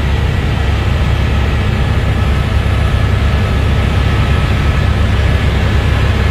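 Helicopter in flight, heard from inside the cabin: a loud, steady, deep drone of engine and rotor with a couple of faint steady high tones over it.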